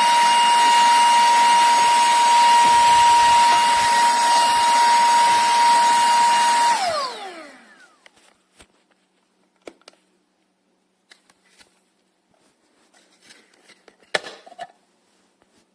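SERVOMASTER cordless handheld vacuum cleaner running with a steady high whine. It is switched off about seven seconds in, and the whine falls as the motor spins down. A few faint clicks of handling follow, with a knock near the end.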